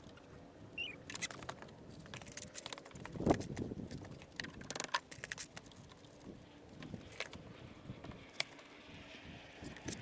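Irregular clinks, knocks and scrapes of stones and hand tools being worked, the loudest knock about three seconds in.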